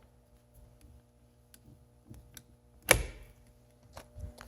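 Handling noise: a few faint ticks and taps, then one sharp knock with a short ring about three seconds in. No motor is running.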